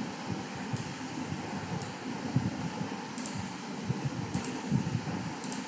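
Computer mouse clicking about once a second, some of them double clicks, over a steady background hum of fan or room noise.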